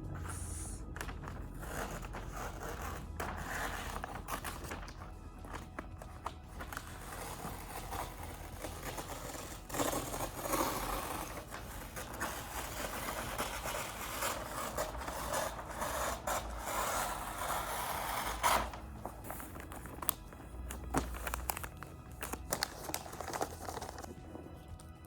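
Wrapping paper rustling and scraping in uneven bursts as a gift is wrapped by hand, with a few sharp ticks near the end.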